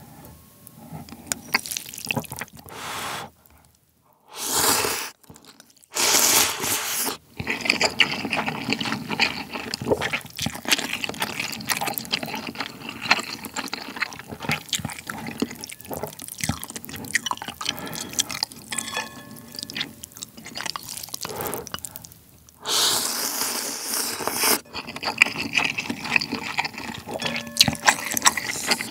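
Close-miked eating of spicy instant ramen: three long loud slurps of noodles and soup, about four and a half seconds in, about six seconds in and about twenty-three seconds in, with steady wet chewing and mouth clicks between them.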